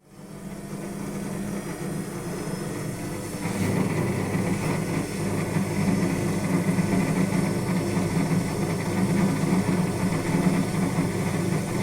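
Indesit WS84TX washing machine running through rinse or spin, a steady low hum from the drum and motor that gets louder about three and a half seconds in. It carries the extraneous noise the owner complains of during rinsing and spinning.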